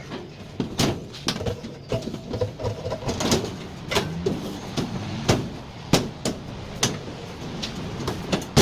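Hand work on the Electrolux dryer's casing and internal parts during reassembly: an uneven run of sharp clicks, knocks and scrapes of metal and plastic parts being handled and fitted.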